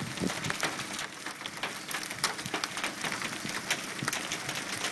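Heavy hail falling and striking the ground and nearby surfaces: a dense, irregular clatter of sharp ticks.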